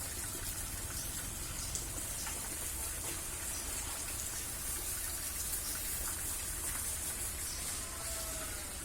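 Steady, even outdoor hiss with a faint low rumble underneath and a few faint ticks.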